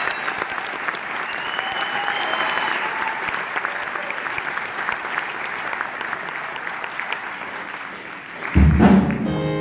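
Large audience applauding and cheering, with a high-pitched cheer rising above the clapping about a second and a half in. About eight and a half seconds in, music starts with deep bass notes as the applause dies down.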